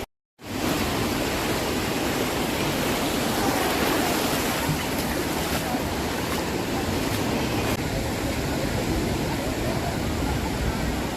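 Ocean surf washing steadily onto a beach as a continuous rushing noise, after a brief gap of silence right at the start.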